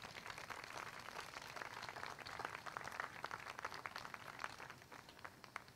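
Audience applauding: a faint, dense patter of many hand claps that thins out and fades near the end.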